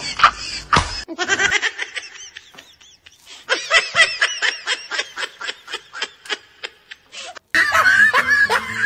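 Laughter in short, rhythmic high-pitched bursts, changing abruptly to a different laugh about a second in and again near the end.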